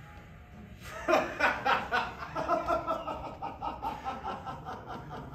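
A person laughing hard in quick repeated bursts, starting about a second in and loudest at the start.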